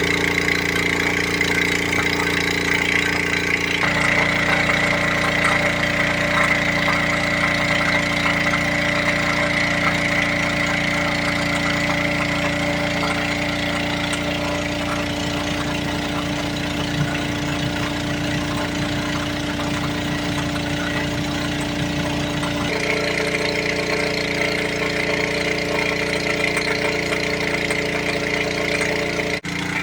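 Small petrol water-pump engine (a mesin alkon) running steadily for gold dredging. Its tone shifts abruptly about four seconds in and again about three-quarters of the way through.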